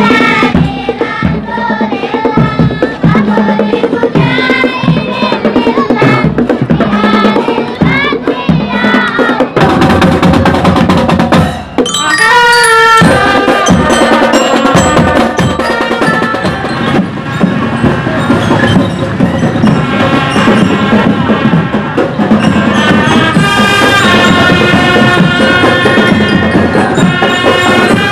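Street marching band playing: bass drums and snare drums keep a steady march beat under a trumpet melody. The band becomes louder and fuller about a third of the way in.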